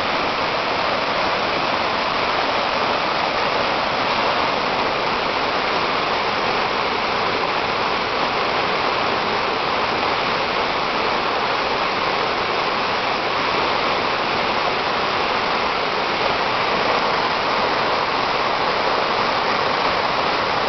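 Small mountain torrent in flood, its swollen muddy water rushing fast and turbulent over the streambed in a steady, unbroken rush.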